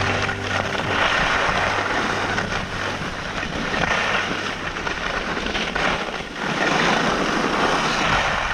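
Skis hissing and scraping over groomed snow, swelling and easing through the turns, with wind rushing over the microphone.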